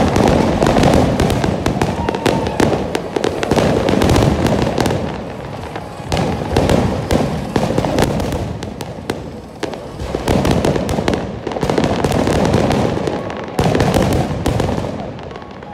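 Fireworks going off in quick succession, many booms and crackles overlapping in loud, swelling waves, dying away near the end.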